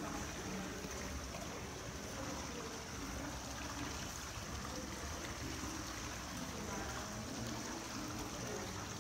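Water trickling and bubbling steadily in a glass vessel, with faint voices murmuring behind it.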